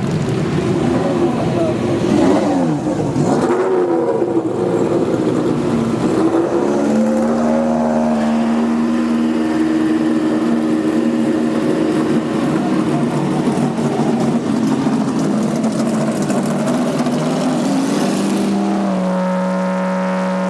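Racing car engines revving as they pass, the pitch swooping up and down for the first few seconds. After that, engine notes hold at a steady pitch, changing again near the end.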